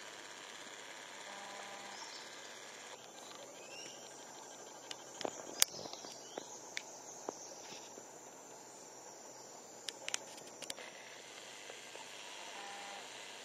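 Steady, high insect chorus in the tropical forest, with a handful of sharp clicks about five to six seconds in and again around ten seconds.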